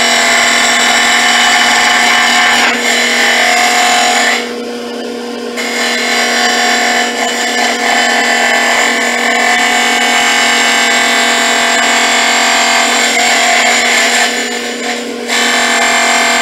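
Wood lathe spinning a red oak blank while a hand-held duplicator's carbide bit cuts it, a loud continuous cutting noise over the lathe's steady hum. The cutting stops for about a second twice, about a third of the way in and near the end, leaving only the lathe running.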